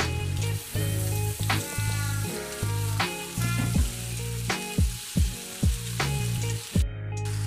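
Background music with a steady beat and deep bass, over minced meat and diced potatoes sizzling in a frying pan as a metal spatula stirs them.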